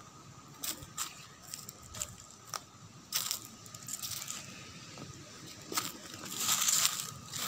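Footsteps crunching over dry fallen leaves and stony ground: a few scattered crackles at first, then longer runs of crunching, loudest near the end.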